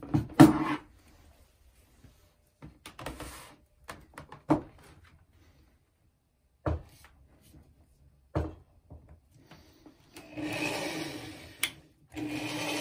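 Several separate knocks and clunks as a DeWalt corded drill and a gold bar are handled and set in a plastic tub. Then, near the end, the drill starts and runs steadily with its bit on the gold bar, stops briefly, and starts again.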